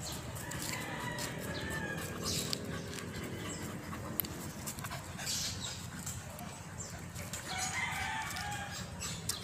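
A rooster crowing, once about a second in and again near the end.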